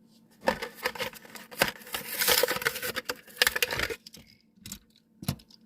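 A Hot Wheels blister pack being opened by hand: the plastic blister crinkles and the cardboard card tears in a rapid run of crackles and clicks lasting about three and a half seconds, followed by a few separate clicks near the end.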